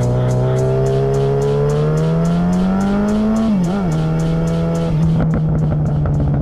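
Yamaha XJ6 Diversion F's 600 cc inline-four through a Black Widow aftermarket exhaust, revs rising under acceleration. About three and a half seconds in the pitch dips and wobbles at a gear change, then it pulls steadily. About five seconds in the throttle is rolled off and the sound drops to a lower, even note.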